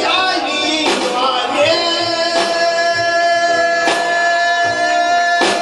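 Live band performing a song: male vocals with electric guitar and cajón. About two seconds in, a single long note starts and is held on, while the cajón hits about every second and a half.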